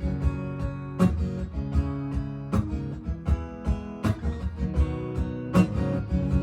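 Acoustic guitar strummed in a steady rhythm, as the instrumental intro of a country song before the vocals come in.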